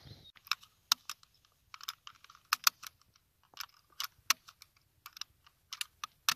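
An irregular series of more than twenty sharp mechanical clicks, some in quick pairs or clusters.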